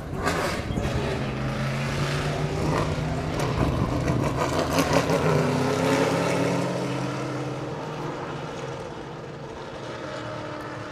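Race car engines passing at speed. The engine note builds to its loudest around five seconds in, drops in pitch as the revs come down, then fades as the cars move away.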